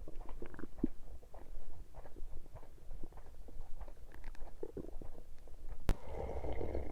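Human stomach and intestines gurgling with digestion: a run of small irregular pops and squelches, then a single sharp click, then a louder rumble near the end.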